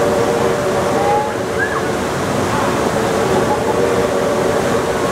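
Nantahala River whitewater rapids rushing steadily, an even, dense noise of water over rocks, with a faint steady hum underneath.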